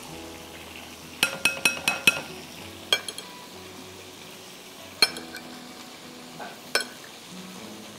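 Metal spoon and fork tossing chopped peppers, onions and tomatoes in marinade on a ceramic plate, clinking against the plate. A quick run of about five clinks comes a little over a second in, then single clinks near three, five and seven seconds.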